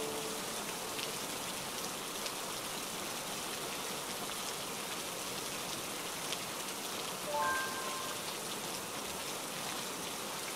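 Steady rain falling and splashing onto a flat wet surface, with single drop hits ticking through it. A few soft musical notes sound about seven and a half seconds in.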